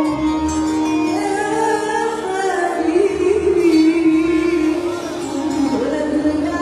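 A woman singing an Arabic song with instrumental accompaniment, holding long, wavering ornamented notes.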